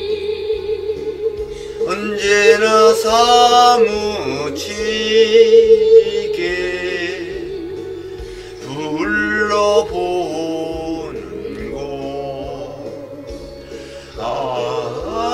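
Background music: a slow Korean song, a singer's voice rising and falling over a steady held accompaniment note.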